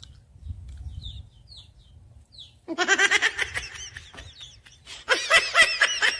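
A few short high chirps from birds over a faint low rumble, then bursts of high, pulsing laughter, once about three seconds in and again near the end.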